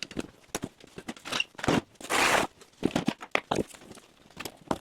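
Scattered knocks and clatters of car parts being handled and moved, with one short scrape just after two seconds in.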